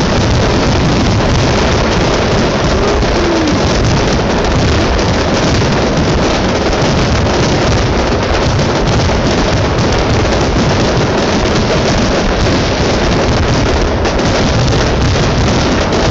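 Fireworks finale: a dense, nonstop barrage of shell bursts so close together that they merge into one loud, unbroken rumble.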